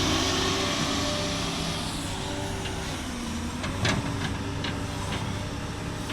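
Heavy diesel machinery running steadily, its hiss easing off about two seconds in, with a run of short sharp knocks between about two and a half and five seconds in.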